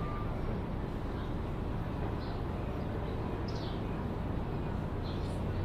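Railway station ambience: a steady low rumble with short high bird chirps a few times over it.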